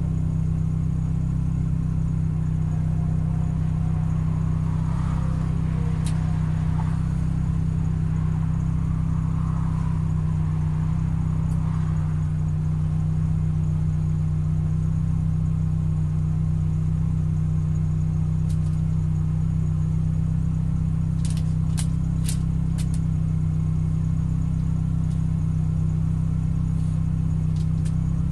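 Car engine idling steadily with an even, low hum, heard from inside the car. A brief run of sharp clicks comes about two-thirds of the way through.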